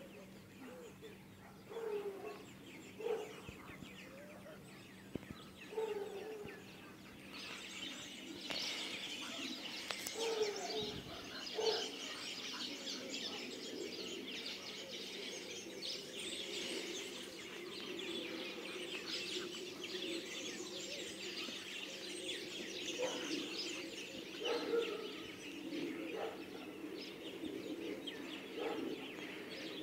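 Birds calling: short low clucking calls, joined from about seven seconds in by a dense run of quick high chirps.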